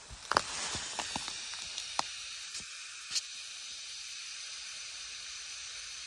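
Compressed air hissing steadily through an air hose into a flat car tire as it is inflated, with a few light knocks in the first three seconds.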